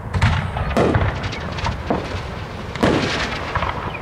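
Aerial firework shells bursting overhead in a rapid string of bangs. The heaviest come about a second in and near three seconds, with smaller pops and crackles between them.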